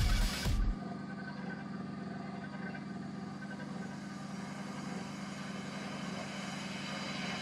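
Small benchtop metal lathe running steadily while a drill in the tailstock chuck bores into the spinning metal stock, a steady motor hum. Background music cuts off within the first second.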